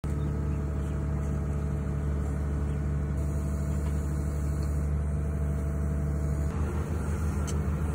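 Excavator's diesel engine idling steadily, with a faint click near the end.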